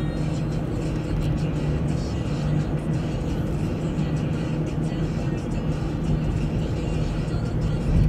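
Car driving steadily along a town road: a continuous engine drone and tyre rumble with no breaks.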